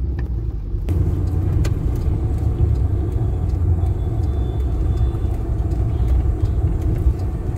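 Steady low road and engine rumble of a moving car, heard from inside its cabin; the noise gets a little louder and fuller about a second in.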